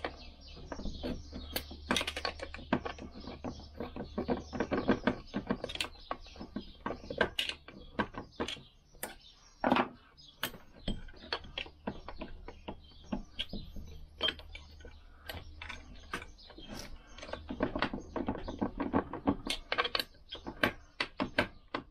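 Irregular metal clicks, taps and scrapes from circlip pliers and a screwdriver prying a stuck part off the layshaft of a Lambretta gearbox, a few louder clicks among many small ones.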